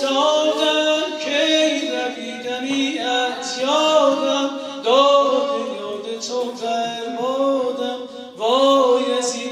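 Music with a man singing a slow melody of held notes that bend in pitch.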